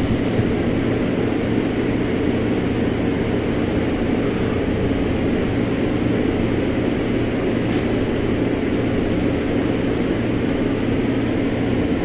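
Steady, loud machine drone: a low hum under an even rushing noise, unchanging throughout.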